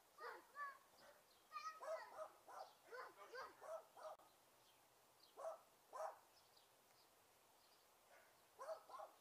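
Small dog barking faintly in short, high yaps: a quick run of barks in the first few seconds, two single barks about halfway through, and a few more near the end.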